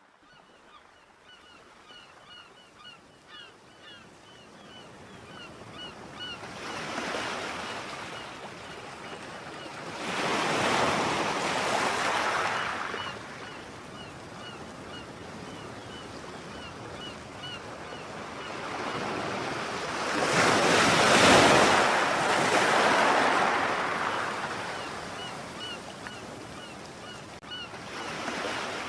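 Ocean waves washing in and receding in several slow swells, with a bird giving short, high calls repeated a few times a second over the surf.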